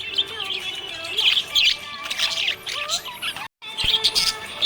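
Budgerigars chirping and warbling, a busy run of quick, high calls that breaks off for an instant about three and a half seconds in.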